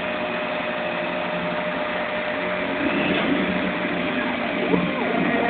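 CNC machine running: a steady mechanical hum with a constant tone, and a short whine that rises and falls in pitch near the end as the motors change speed.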